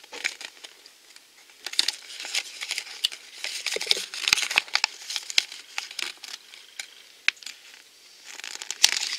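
Folded paper collector's guide crinkling and rustling as it is unfolded and handled, in irregular crackles and sharp clicks, with a quieter lull of about two seconds before more rustling near the end.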